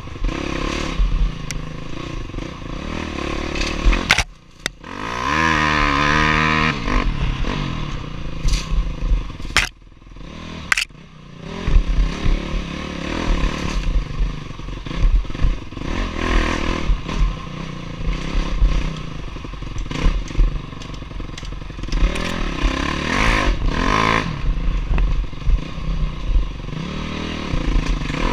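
Honda dirt bike engine running hard under a rider on a trail, the throttle rising and falling. It drops off sharply about four seconds in and again near ten seconds, then climbs in pitch as the bike picks up. Sharp knocks from the bike come through now and then.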